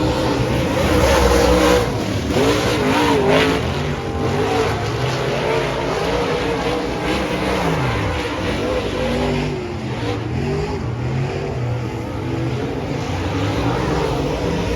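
Several dirt-track race car engines running together, their pitches rising and falling as they rev up and back off.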